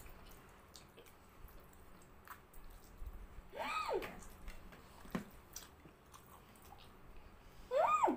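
Noodles being slurped and chewed, with many small wet clicks. Twice, about four seconds apart, there is a short high-pitched cry that rises and falls.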